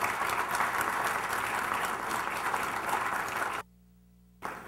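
Audience applauding, a dense patter of many hands clapping that cuts off suddenly about three and a half seconds in.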